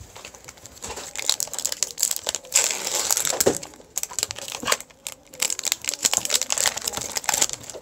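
Foil wrapper of a Pokémon trading-card booster pack crinkling and tearing as the pack is opened. The crackling comes in bursts, with a short lull about four seconds in.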